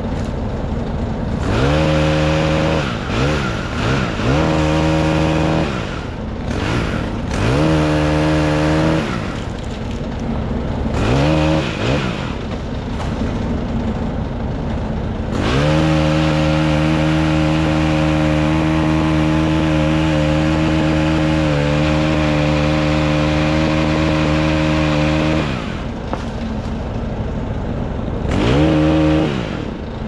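Chainsaw revved up in short bursts several times, then held at full throttle for about ten seconds while cutting, and revved once more near the end.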